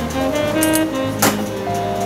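Background instrumental music, a melody of short stepping notes, with a single sharp click a little past halfway.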